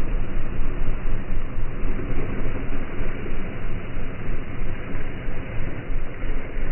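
CF Moto 520 L ATV driving through a muddy puddle and passing close by: engine running under throttle, with mud and water splashing around the tyres, a dense rumble that rises and falls in loudness.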